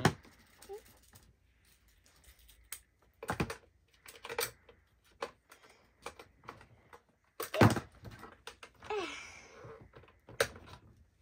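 Small toy skateboards and plastic playset pieces clicking and tapping as they are fitted into the racks on the side of a plastic toy taco truck. The clicks are scattered and irregular, with one louder knock about two-thirds of the way through.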